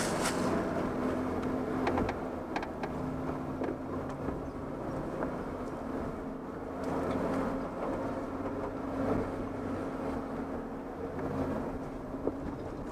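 Off-road 4x4 crawling slowly up a rutted dirt trail, its engine running at low, steady revs, with a few light knocks and creaks from the tyres and chassis working over the ground.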